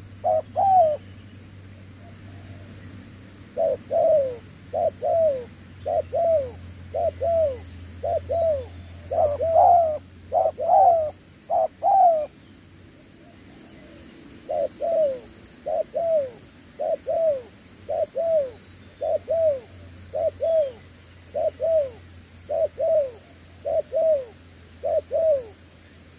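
Spotted dove cooing: quick series of short coo notes, each falling in pitch, about one and a half a second. There are two long runs with a pause of about two seconds between them.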